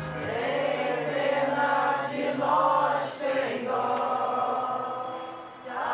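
A group of voices singing a devotional chant together in long, held notes.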